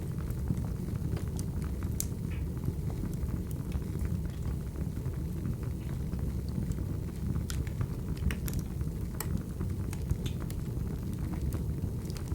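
Wood fire burning: a steady low rumble of flames with irregular sharp crackles and pops of burning firewood scattered throughout.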